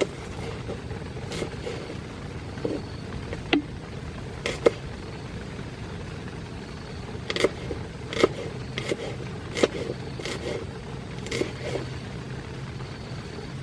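Rain falling on a tent: a steady hiss of rain on the fabric, with single heavier drops tapping sharply at irregular moments.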